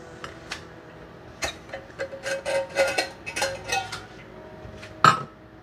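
Dishes and kitchenware clinking and clattering as they are handled, with one louder sharp knock about five seconds in.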